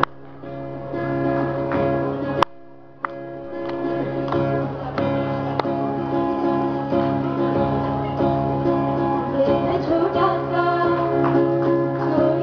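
Acoustic guitar playing with a group of voices singing, in a live stage performance. A sharp click and a short drop-out come about two and a half seconds in.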